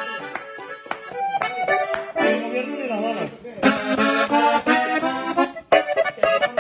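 Gabbanelli button accordion played solo: a quick run of separate notes and chords, with a brief break near the end.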